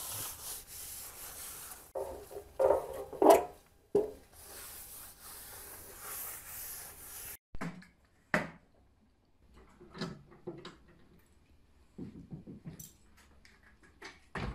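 A cloth rubbed back and forth over a wooden mantel beam for about seven seconds. After that come separate sharp knocks and rattles as an aluminium work-platform scaffold tower is folded and moved.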